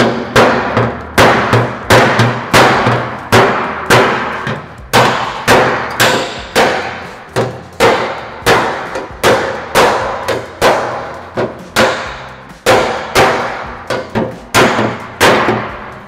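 Convex-crowned body hammer striking the dented sheet metal of a 1940 Willys hood, about two ringing metallic clangs a second, popping the dents back out.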